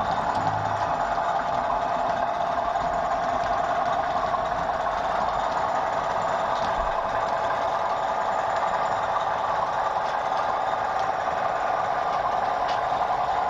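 Model coal train running: a rake of loaded coal wagons rolling over the track and pointwork, giving a steady running rumble with a few faint clicks from the rail joints.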